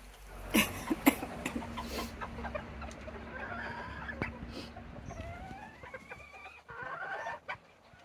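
Bantam chickens clucking, with drawn-out rising calls in the second half. A few sharp taps sound near the start.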